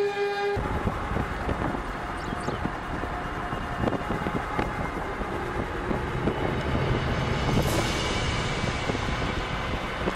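A steady pitched tone, horn-like, stops abruptly just after the start. Then a rough, loud rush of wind and storm noise mixed with vehicle noise from a storm-chase car.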